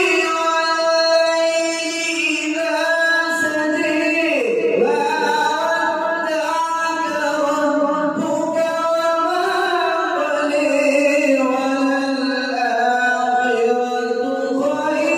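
A man's melodic Quran recitation (tilawat), one voice holding long, ornamented notes that glide and waver in pitch, with a short break for breath about four seconds in.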